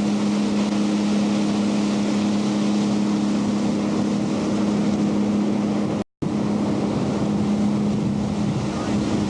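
Boat's engine running steadily underway, a low even drone with a hiss of wind and water over it. The sound cuts out completely for a split second about six seconds in.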